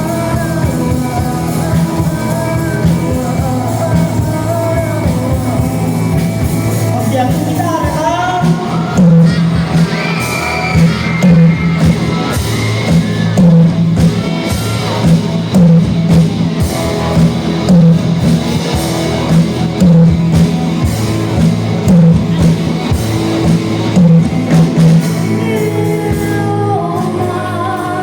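Rock band playing with a singer, sounding like a large hall. A heavy, regular beat comes in about nine seconds in.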